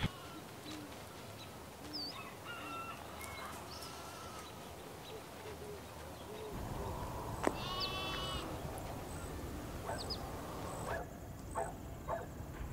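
Village outdoor ambience: small birds chirping and scattered farm animal calls, with one longer, clearer animal call a little past the middle.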